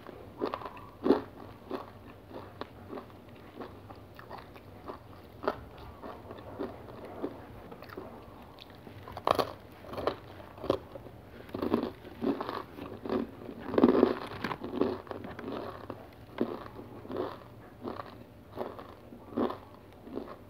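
Chewing and crunching of a crunchy whole-grain cereal bar: irregular crisp crunches with short gaps between them, and louder bites about nine and fourteen seconds in.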